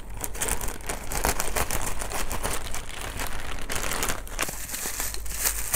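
Plastic courier mailer bag crinkling and crackling as it is snipped open with scissors and handled. A single sharp snap comes right at the end.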